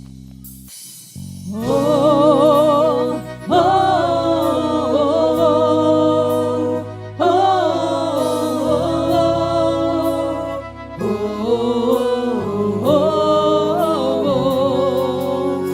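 Quadrilha junina music: a voice sings long drawn-out notes with wide vibrato, without clear words, over a steady low accompaniment, entering after a softer first second and a half.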